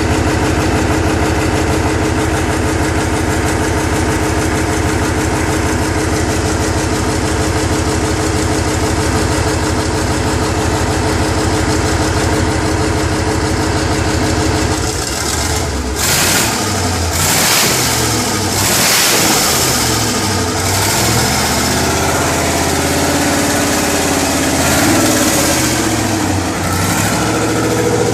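Rebuilt UD RE8 V8 diesel engine running: an even, fast engine beat for about the first half. Then the sound changes, with several bursts of hiss over a few seconds, before the engine settles into slower running.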